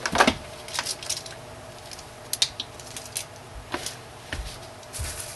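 Scattered light clicks and crackles of plastic and paper being handled: bubble wrap, parchment paper and a silicone soap mold moved about on a metal baking tray.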